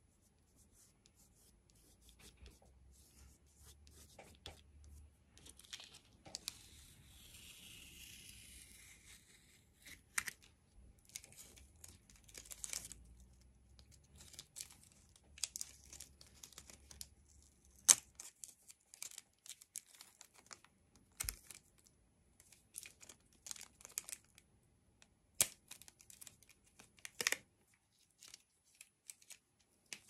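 Cellophane tape pulled and torn, a rasping rip of a few seconds, followed by scattered small clicks and rustles of handling.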